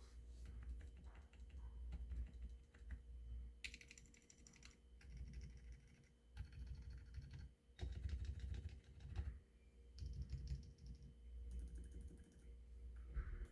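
Typing on a COX Pinnace mechanical keyboard with stock Outemu Peach switches: rapid keystroke clicks in runs, with brief pauses between them.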